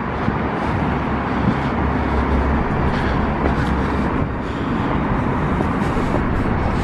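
Steady rumble and hiss of distant road traffic.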